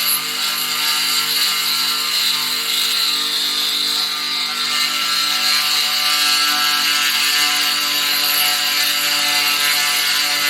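Proxxon micro milling machine running steadily with a high whine as its cutter mills a small flat into a rod, a starting spot so the drill won't wander.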